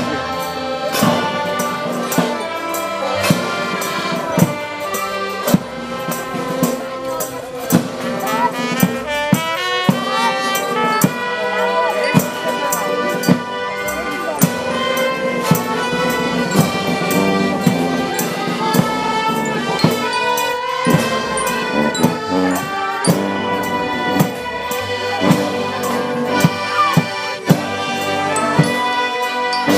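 Live band music from brass and accordion, a lively tune carried over a steady beat of percussive strikes.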